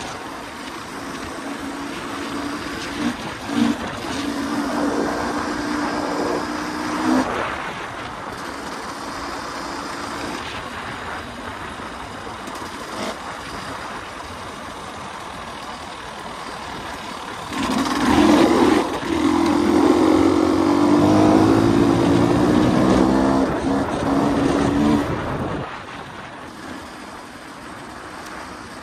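2023 KTM 300 EXC single-cylinder two-stroke engine being ridden on a dirt track. It revs in short bursts in the first quarter and runs lighter through the middle. A little past halfway it makes a long, loud pull with climbing pitch, then eases off near the end. Wind buffets the handlebar-mounted phone's microphone throughout.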